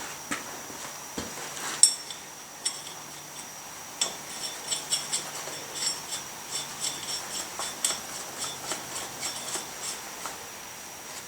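Irregular metallic clinks, taps and light scraping of steel lug nuts being handled and threaded onto a tractor wheel stud by hand. The clinks come quicker from about four seconds in.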